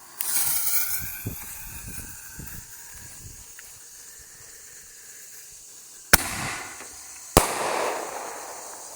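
Consumer artillery shell, a cheap canister shell, fired from a mortar tube. It launches with a hissing rush that fades over a couple of seconds. About six seconds in there is a sharp bang as the shell breaks, then a second bang a second later, followed by a crackling hiss that dies away.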